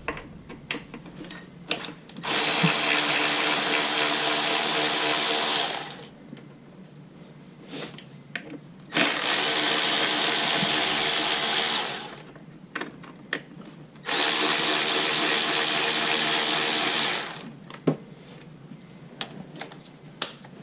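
Cordless power tool running in three bursts of about three seconds each, spinning out fasteners while the ignition coils and spark plugs are removed from the engine, with small clicks of handling between bursts.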